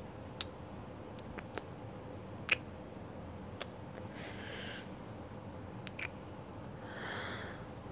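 A pause in a close-miked spoken performance. There are faint scattered mouth clicks, the sharpest about two and a half seconds in, and two soft breaths, one about halfway through and one near the end.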